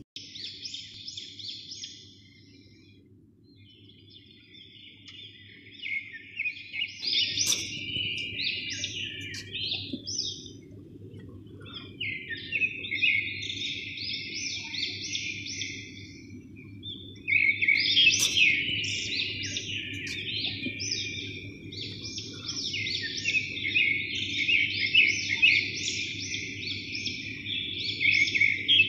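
Small birds chirping and twittering in quick, overlapping runs, over a steady low hum.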